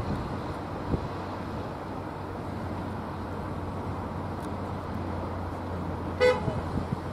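Hitachi Azuma bi-mode train's underfloor diesel engines giving a steady low drone as it moves slowly through, smoking heavily. A brief horn toot about six seconds in.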